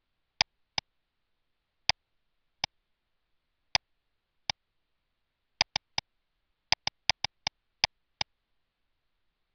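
Computer mouse button clicks, about sixteen sharp single clicks at irregular spacing with silence between, including a quick run of several clicks about two-thirds of the way in.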